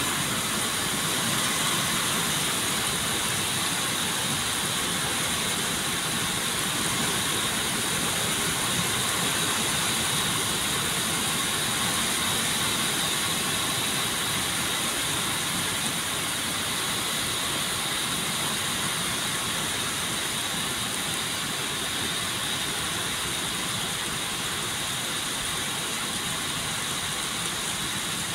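Heavy rain falling steadily as a dense, even hiss, onto a yard and a corrugated metal carport roof, easing slightly toward the end.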